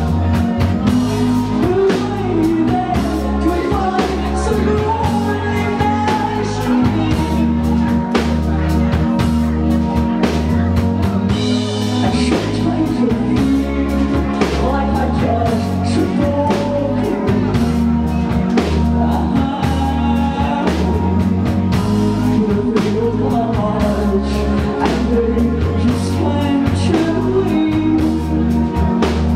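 Live rock band playing, with a woman singing over electric guitar and drums.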